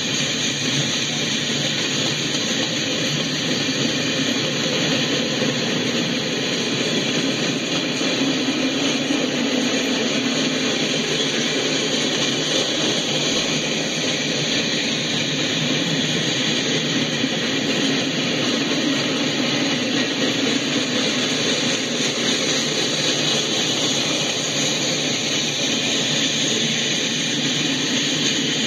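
Freight train cars rolling past, a steady unbroken noise of steel wheels on rail, heard through a live railway webcam's audio feed.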